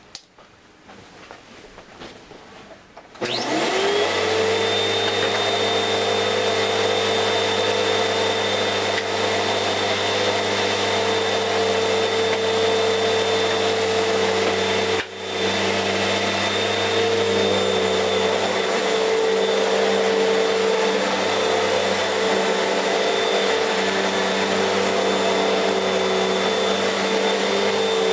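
Fantom Fury upright vacuum cleaner's motor switched on about three seconds in, spinning up with a rising whine and then running steadily at full speed with a high whine, with a brief dip about halfway through.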